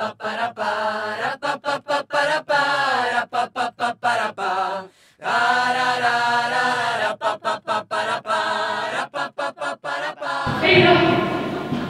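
Vocal music: chant-like singing, its line broken again and again by short, sharp breaks. About ten and a half seconds in it gives way to a fuller, echoing voice that trails off.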